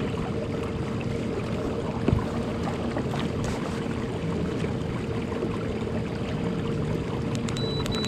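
Steady wind and water noise around a kayak, under a faint steady hum. One sharp click comes about two seconds in, and a thin high beep starts near the end.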